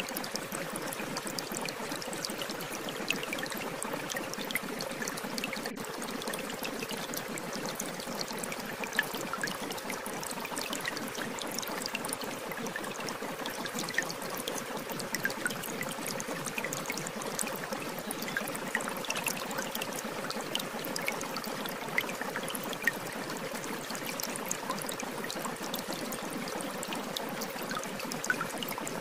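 Shower water running steadily, a continuous spray with many small splashing drips.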